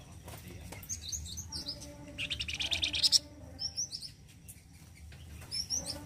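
Caged flamboyan songbird singing: short high chirps, then about two seconds in a loud, harsh, buzzing trill lasting roughly a second, followed by more quick chirps.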